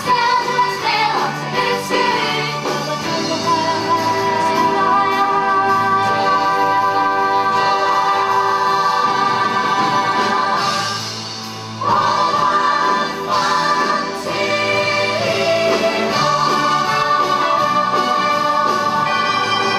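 Stage-musical song: singing over orchestral backing, with long held notes. It drops back briefly a little past halfway, then comes in full again.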